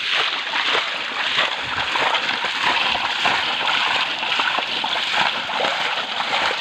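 Hands splashing and sloshing through shallow stream water while groping for fish, a busy, continuous splashing over the running stream.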